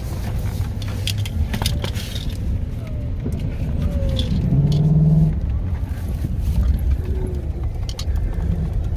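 Derecho straight-line winds buffeting a truck, a loud, continuous low rumble, with scattered sharp ticks and knocks of wind-blown debris hitting the vehicle.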